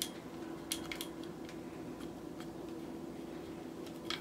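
Scattered sharp clicks and light knocks from a ring light's metal telescoping stand pole being handled and extended, over a faint steady hum.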